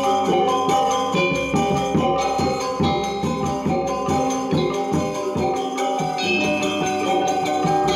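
Balinese gamelan gong ensemble playing: a fast, dense stream of ringing bronze metallophone and gong notes over a steady beat.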